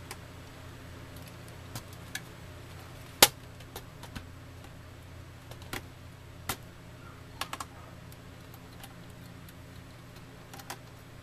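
Scattered sharp clicks and knocks of a laptop's plastic case and loose screws being handled as it is turned over onto its underside, the loudest knock about three seconds in. A steady low hum runs underneath.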